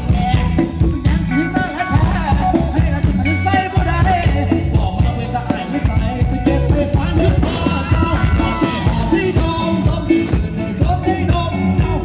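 Loud live Thai ramwong band music over a PA, with a singer's voice over a steady beat.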